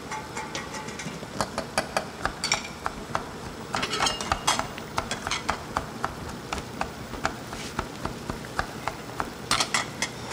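Kitchen clatter: metal pots, lids and utensils clinking and knocking in scattered clusters, over a steady low background noise.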